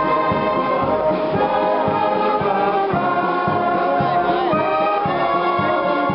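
Wind band playing a slow piece with long held brass notes, live at a flag-raising.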